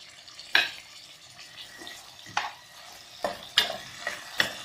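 Sliced onions frying in oil in an aluminium pressure cooker, a steady sizzle, with a metal spoon scraping and knocking against the pan several times as they are stirred.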